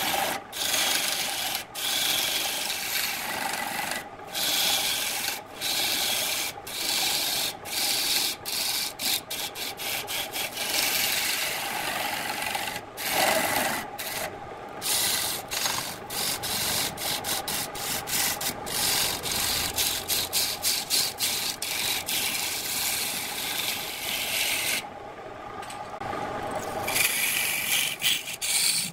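A hand-held turning tool cutting into a wooden vase blank spinning on a wood lathe: a continuous scraping hiss as shavings are peeled off, broken by many brief gaps where the tool lifts off the wood.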